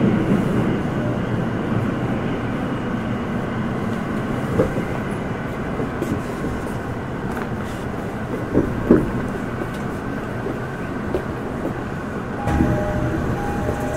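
Tokyo Metro Ginza Line 1000 series subway car running and slowing into a station, a steady rumble with a few short sharp sounds from the wheels and track. Near the end the sound changes and a couple of steady tones begin.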